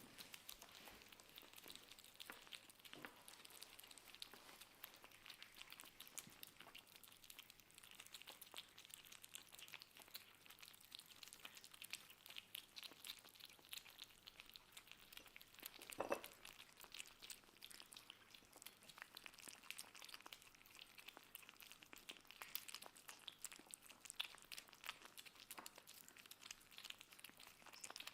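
Kittens eating: faint, continuous crackly chewing and clicking noises, with one soft thump about 16 seconds in.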